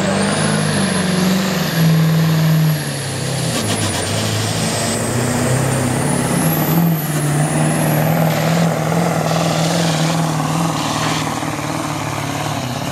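Ford 7.3-litre Powerstroke turbo-diesel pickup engine running at full throttle under heavy load while pulling a weight-transfer sled, with a high turbo whistle over the engine. The engine dips briefly about three seconds in, then pulls on steadily.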